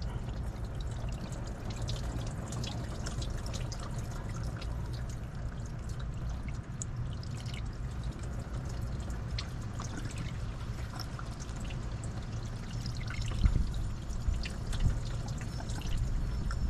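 Engine coolant trickling and dripping out of the loosened thermostat housing of a 2013 Chevy Spark's 1.2-litre engine as the system drains a little at a time. Small clicks of the housing being handled, a steady low hum underneath, and a few louder spots near the end.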